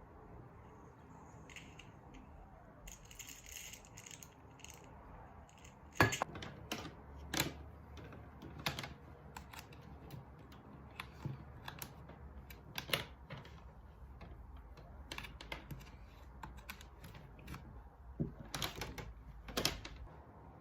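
Irregular clicks and knocks of small hard objects being handled, the loudest about six seconds in and a quick cluster near the end, over a low steady hum that begins about six seconds in.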